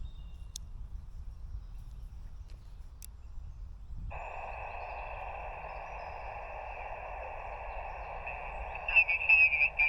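A low rumble, then about four seconds in the hiss of an SSB transceiver's receiver comes on suddenly and holds steady, the band noise of a shortwave radio's speaker. Near the end a faint, garbled, warbling signal squeaks through the hiss.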